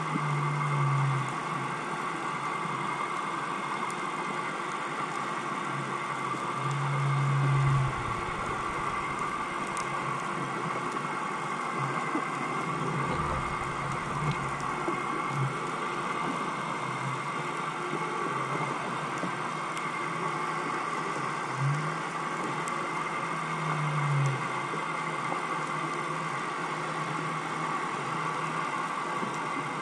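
Steady mechanical hum with several constant tones, recorded underwater through the camera housing. Short low pulses, each about a second long, come every few seconds, and there is a low rumble between about 8 and 15 seconds in.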